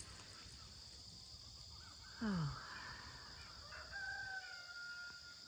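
Chickens calling: a short call falling sharply in pitch about two seconds in, then a long, held crow-like call near the end. Insects drone steadily underneath.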